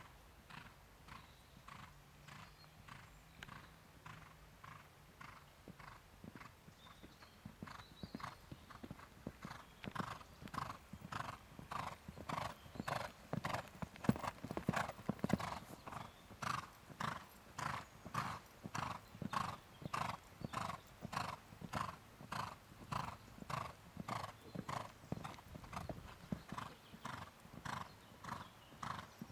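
Horse cantering on arena sand, with one regular beat each stride, about three every two seconds. It grows louder about ten seconds in as the horse comes close, then eases off.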